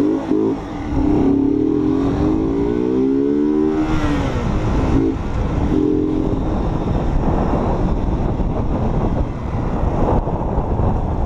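Honda motorcycle engine accelerating, its pitch rising for about three seconds and then falling away about four seconds in. A shorter rev follows, then a steady noisy rush as the bike rides on.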